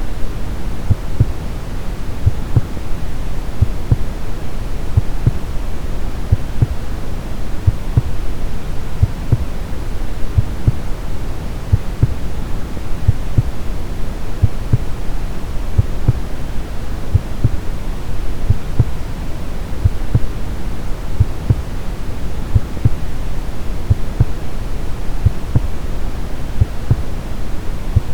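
Steady brown noise with a regular heartbeat beating low beneath it.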